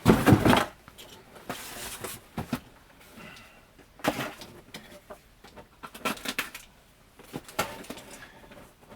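Handling of a shipping package: a loud rustle at the start, then scattered crinkling, rustling and light clicks of plastic wrapping and cardboard as the wrapped figure box is unwrapped.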